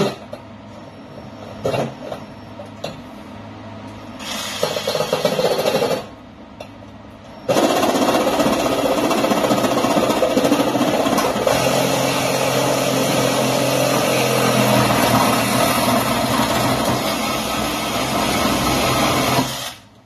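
Ryobi reciprocating saw with a metal-cutting blade sawing through steel EMT conduit: a short burst about four seconds in, then a long steady run from about seven seconds that stops abruptly near the end as the piece cuts off.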